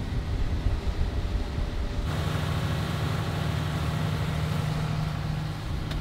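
Fishing boat's engine running under way, a low rumble with wind and water hiss. About two seconds in the sound changes suddenly to a steadier, slightly higher hum with more hiss.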